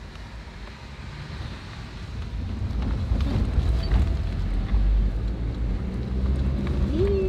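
Four-wheel-drive engine running while driving on sand, with wind on the microphone. The engine gets louder about two and a half seconds in.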